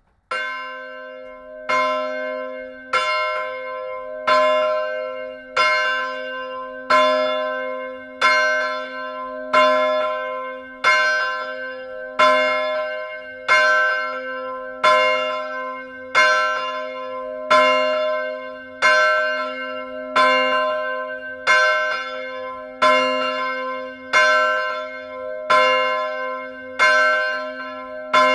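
A swinging church bell, the 1957 Petit & Fritsen bronze bell of 771 mm with strike note C, starting to ring: the clapper strikes just after the start, the first stroke softer, then about once every 1.3 seconds, each stroke ringing on into the next.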